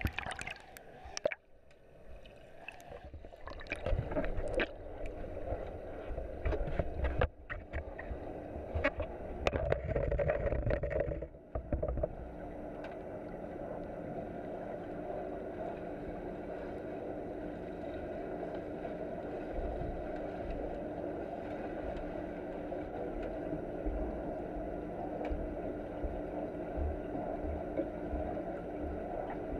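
Water splashing and bubbling around an action camera at the pool surface, with sharp knocks against its housing; after about twelve seconds the splashing stops and the camera, now submerged, picks up a steady underwater drone with a low hum.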